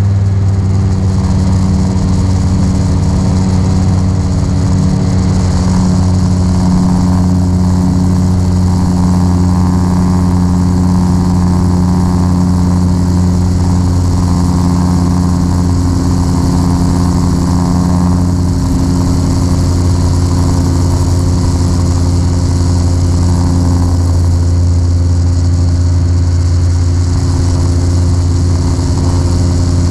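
Magni M24 gyroplane's engine and pusher propeller droning steadily in flight, heard inside the cockpit. It is a loud, even drone with a slight shift in tone about a second in and again about three quarters of the way through.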